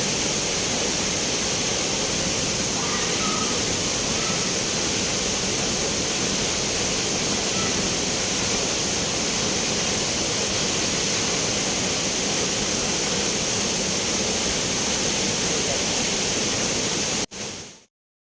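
Steady rushing of flowing spring water, which cuts off abruptly near the end.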